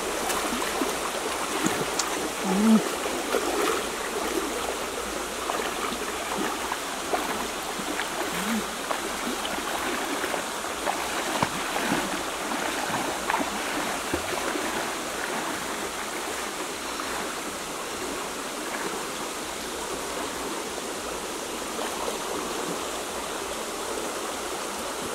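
Shallow creek water running steadily, with a few faint short sounds over it in the first half.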